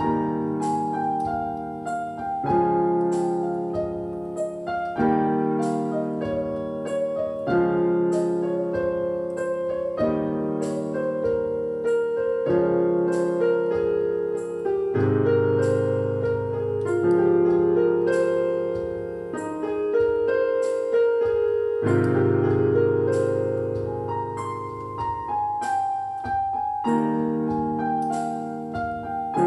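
Background piano music, with chords changing about every two and a half seconds under quicker notes on top.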